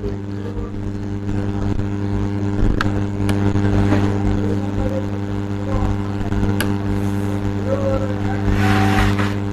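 A steady, low mechanical hum with even overtones, like a motor or engine running, with a few sharp clicks over it.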